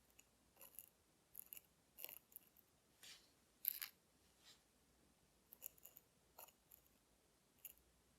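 Faint, scattered clicks and short scrapes of small metal watchmaker's hand tools working on the watch's hands while they are being re-lumed.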